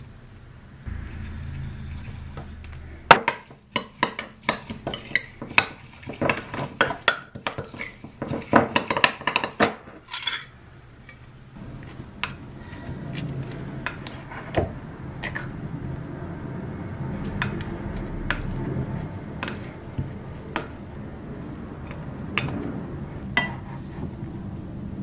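A metal spoon stirring sauce in a glass mug, with rapid clinks against the glass for several seconds. After that come softer scraping and the odd light knock as cooked noodles and bean sprouts are tossed in a pot with a plastic rice paddle.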